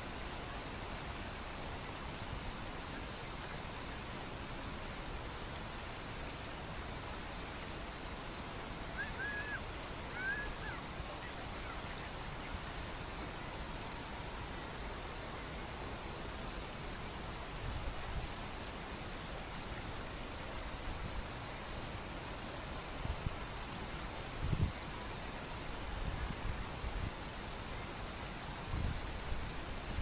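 Shallow river running over stones, a steady rushing flow. Over it comes a steady, high, fast-pulsing chirring, with a couple of short bird chirps about a third of the way in and a few low bumps in the second half.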